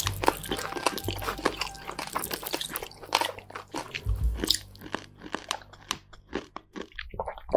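Crunchy ASMR eating sounds: rapid, irregular crunching bites and chewing, thinning out in the last second or so before a single louder hit at the very end.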